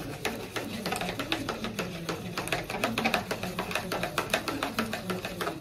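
Background music with a quick, clicking percussive beat over a low melody; it stops abruptly at the end.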